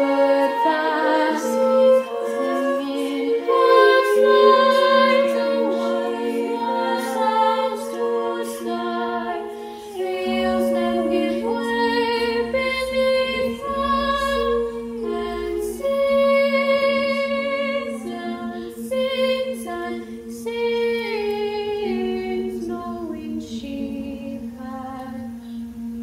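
Women's choir singing slow, sustained chords over a steady held low note, growing softer toward the end.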